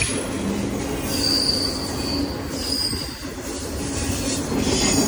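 BNSF double-stack intermodal freight train rolling past close by, its steel wheels running on the rail with a steady rumble. A high-pitched wheel squeal comes in about a second in and lasts about a second, then sounds again briefly near three seconds.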